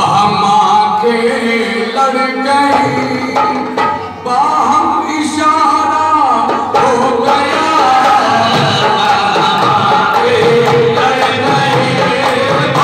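Qawwali singing accompanied by hand drums. The drumming gets fuller and louder partway through.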